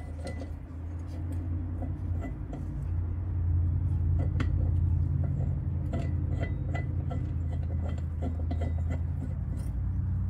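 Hand tools and small metal engine parts clinking and tapping, over a low steady drone that grows louder a few seconds in and stays.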